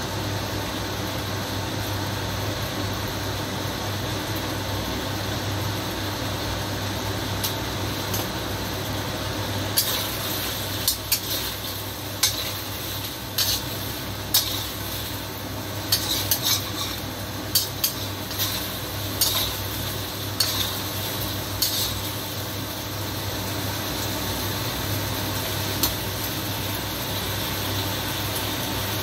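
Metal ladle stirring and scraping in a steel wok of braised chicken wings and potatoes, with a run of sharp clinks against the pan through the middle, over a steady hum.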